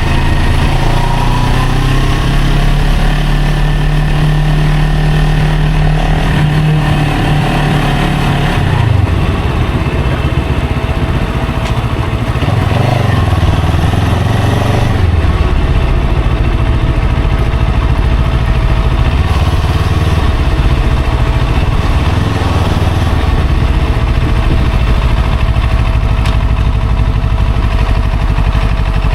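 Motor vehicle engine running while moving through traffic. Its pitch drops about nine seconds in and shifts again around fifteen seconds, as with gear changes or slowing, and a faint steady whine sounds over it in the second half.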